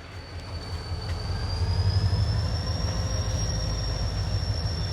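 HO scale diesel locomotive's sound playing a diesel engine rumble that grows louder over the first two seconds, with a thin high whine that slowly rises in pitch.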